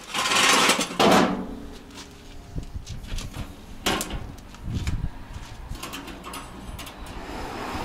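A wire grill grate and stainless-steel grill parts being handled: metal clanks and rattles, with a sharp knock about four seconds in and a dull thud soon after. Two loud rushing, scraping noises come first.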